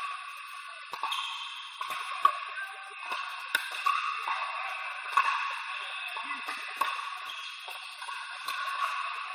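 Pickleball paddles hitting plastic balls on several courts at once: irregular sharp pops, echoing in a large indoor hall, over background chatter of voices.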